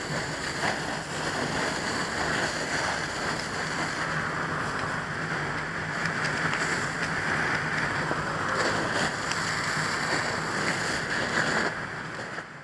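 Fire hose nozzle stream spraying water onto burning debris: a steady, loud rushing hiss of water, with a low hum underneath.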